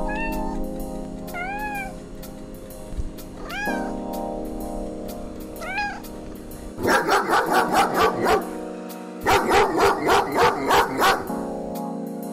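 Background music with a cat meowing four times, short arched calls, followed by two loud runs of rapid, evenly repeated animal calls, about seven a second.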